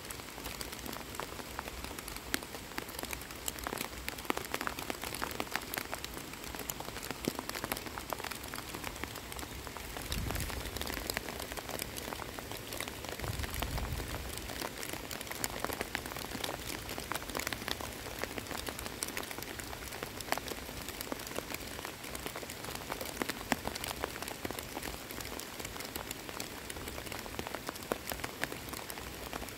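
Steady rain falling on pond water and wet grass, with many close, separate drop impacts. Two short low rumbles come about ten and thirteen seconds in.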